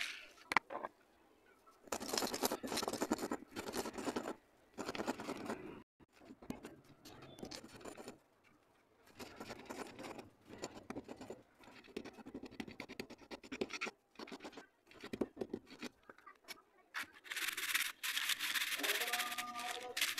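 Gritty rubbing and scraping of crushed slate-pencil pieces being ground by hand against a concrete floor, in several bouts with short pauses. It opens with a couple of sharp taps, and the longest bout of grinding comes near the end.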